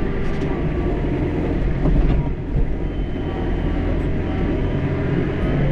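John Deere 4066R compact tractor's three-cylinder diesel engine running steadily under work, with a brief knock about two seconds in.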